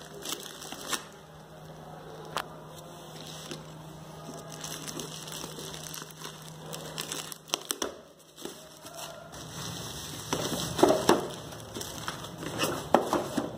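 Plastic bubble wrap crinkling and rustling as it is handled and pulled off a packed box, with scattered sharp crackles, louder and busier near the end.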